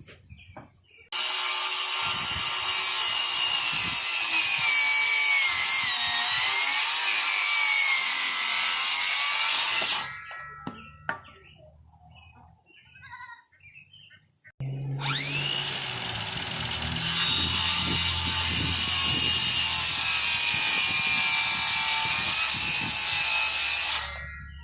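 A power tool running into wood during gate building, in two long runs of about nine seconds each with a quiet pause between. Its whine drops in pitch under load partway through the first run and then recovers.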